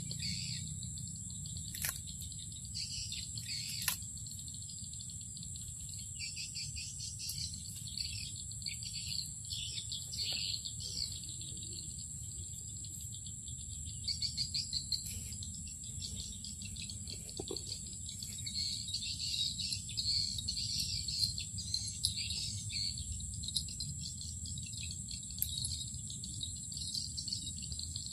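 Outdoor insect and bird chorus: a steady high-pitched insect drone of crickets or cicadas, with small birds chirping on and off over it. There are two sharp clicks a few seconds in.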